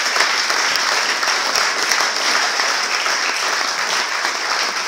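Audience in a hall applauding steadily, a dense patter of many hands clapping.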